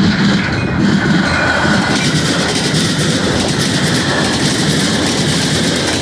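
Metra commuter train's stainless-steel bilevel coaches rolling past close by with a loud, steady rumble, steel wheels clacking over the rail joints.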